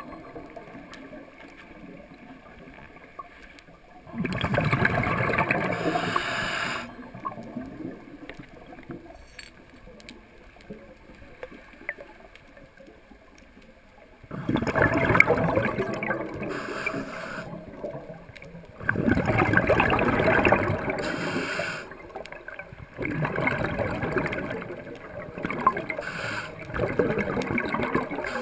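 Scuba diver breathing through a regulator underwater: a rush of exhaled bubbles lasting two to three seconds, four times, with quieter stretches between breaths.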